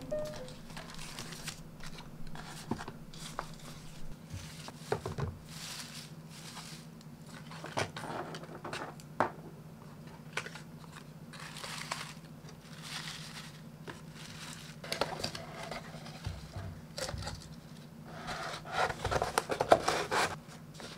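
Hands rustling and crinkling paper packaging while packing items into a kraft cardboard mailer box filled with shredded paper filler, with a few light taps and a louder stretch of rustling near the end. A faint steady low hum runs underneath.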